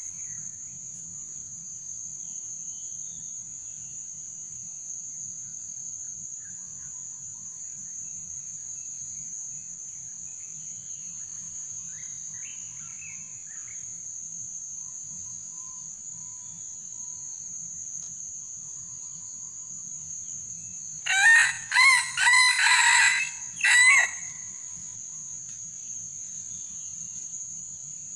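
A rooster crows once, loud and close, near the end, a pitched call in several linked parts lasting about three seconds. A steady high insect drone runs underneath.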